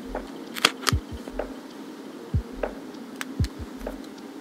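Irregular light clicks and soft thuds from handling metal tweezers, a sticker sheet and a plastic mini 4WD body shell while decals are applied.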